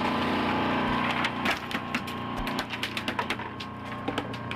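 Boat engine running steadily with water rushing along the hull. From about a second in, a run of sharp, irregular clicks and knocks comes in.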